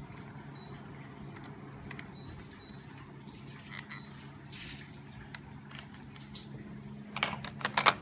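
A plastic air-conditioner remote control being handled and knocked against its wall holder, giving a quick run of sharp clicks and clatter about seven seconds in. A steady low hum lies underneath.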